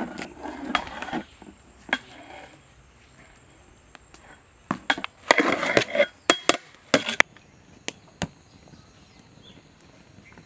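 Long metal ladle stirring cooked rice in a large aluminium pot: scraping in the first second, then a few seconds in a run of scrapes and sharp knocks of the ladle against the pot, followed by a couple of single clicks.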